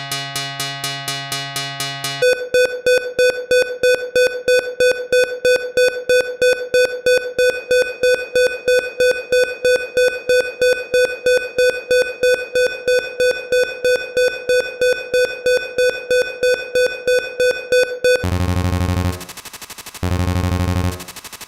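Synthesized imitation of Siemens Magnetom Skyra 3 T MRI scan-sequence noises. A fast buzzing pulse gives way about two seconds in to a steady beeping tone at about three beeps a second. Near the end this switches to a low buzz that turns on and off about once a second.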